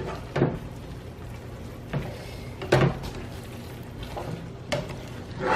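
A serving utensil knocking and scraping against a pan while pasta, chicken and broccoli are mixed together: about five separate clacks a second or so apart.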